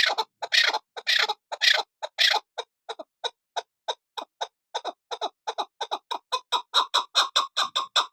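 Female chukar partridge calling: a run of repeated clucking notes, longer and spaced at first, then shorter and quicker, speeding up to about five notes a second near the end.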